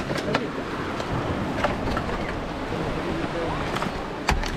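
Small waves washing onto the beach, with scattered knocks and clicks on the boat and faint voices in the background.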